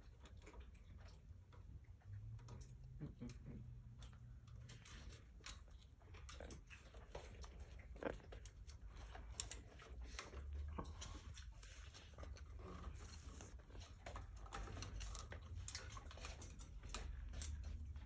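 Amazon parrot eating pomegranate close to the microphone: irregular soft clicks and cracks of its beak working the seeds, with a low rumble underneath.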